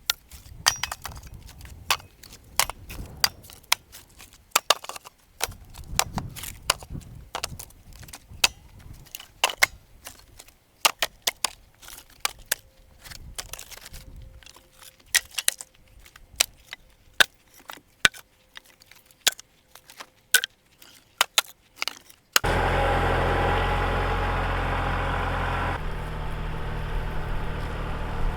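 Pieces of sawmill slab wood clattering together in a long, irregular run of sharp wooden knocks. About two-thirds of the way in, this cuts off suddenly and an engine starts being heard running steadily, louder than the knocks.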